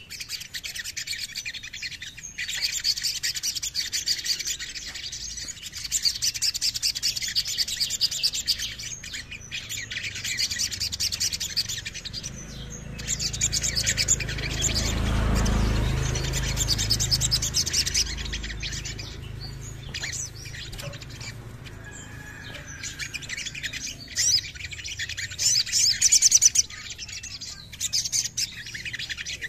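Male olive-backed sunbird singing: fast, high trilling runs of notes in bursts with short breaks. A low rumble swells and fades about halfway through.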